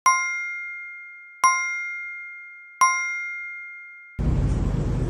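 A bell-like chime strikes three times, evenly about a second and a half apart, each ding ringing out and fading. About four seconds in, a steady low rumbling noise cuts in abruptly.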